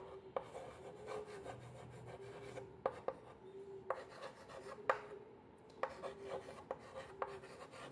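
Chalk writing on a blackboard: scratchy rubbing strokes with a sharp tap, irregularly, about once a second.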